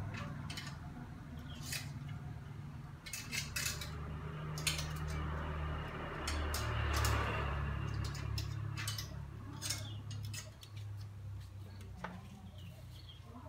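Clothes hangers clicking and clattering against one another and the drying rack as clothes are hung: a scatter of sharp irregular clicks over a low steady hum.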